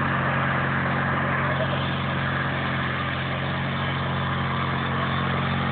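Small engine of a John Deere riding lawn tractor running at a steady speed as it tows a cart, a constant, unchanging drone.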